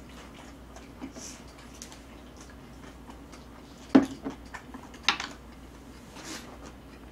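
Close-up eating sounds of ramen noodles being eaten with chopsticks: scattered small clicks and wet mouth noises, with a sharper click about four seconds in and a short noisy sound just after five seconds.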